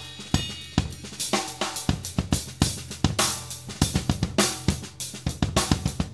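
Yamaha drum kit played continuously, with rapid snare, bass drum and cymbal strokes, picked up through a minimal set of AKG drum microphones.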